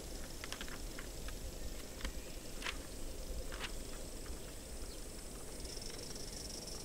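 Aster gauge 1 live-steam model of a class 52 steam locomotive running with its coaches. A handful of light, irregular clicks from the wheels on the track, then a steady high steam hiss that grows louder about six seconds in.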